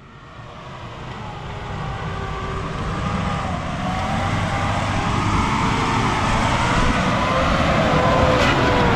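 Jeep Cherokee engine running under load, its pitch wavering up and down with the throttle, with tyre and drivetrain noise, growing steadily louder.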